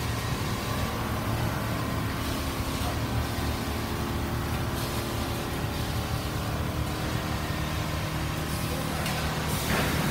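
Steady machine din of a factory floor of quilting machines running: a constant low hum with several steady tones over a noisy wash. A short burst of hiss comes near the end.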